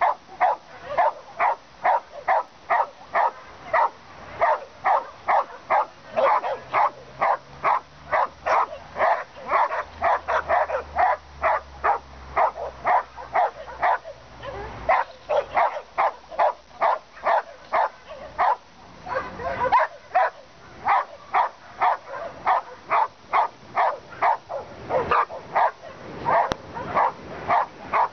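A dog barking rapidly and without pause, about three short, sharp barks a second.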